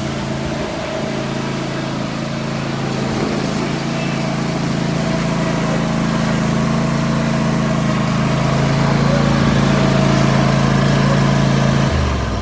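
Riding lawn mower engine running steadily, growing slightly louder, then shutting down about twelve seconds in.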